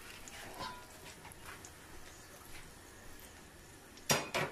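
Two sharp knocks of a metal cooking utensil against a pot, close together about four seconds in, over a faint background hiss.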